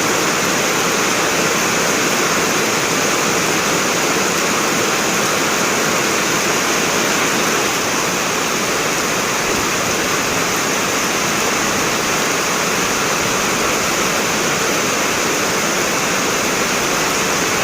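Heavy rain falling steadily in a strong wind.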